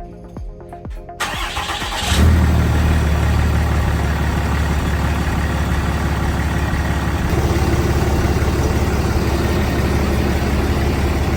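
A 2012 Ram 3500 pickup's engine being started: a second of cranking, then it catches about two seconds in and settles into a steady idle.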